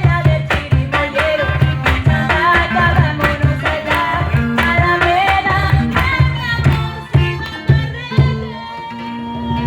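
Marinera norteña music played over a sound system: a steady percussion beat under a melody that includes a singing voice.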